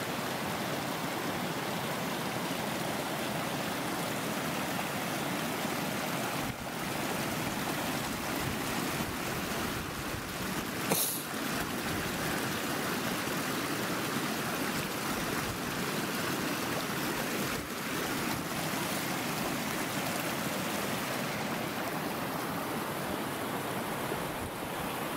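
Small snowmelt-fed mountain brook running over rocks: a steady rush of water, with one brief sharp click about eleven seconds in.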